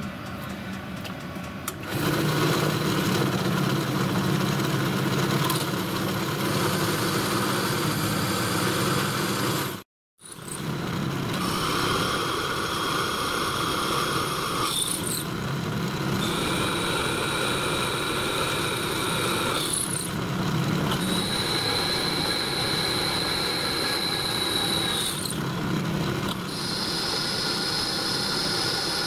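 Pillar drill running and boring a series of holes through a cast iron steam chest cover held in a drill vice, the bit cutting with a high steady whine. It cuts out briefly about a third of the way in, and its tone shifts a few times as hole follows hole.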